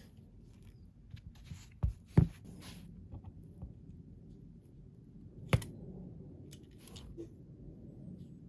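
Parts and tools being handled during a dryer roller repair: scattered clicks and light knocks, with two sharper knocks close together about two seconds in and another a little past five seconds.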